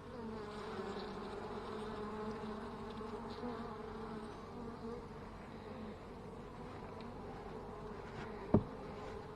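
Italian honey bees buzzing in a steady hum from an open hive, with one sharp knock about eight and a half seconds in.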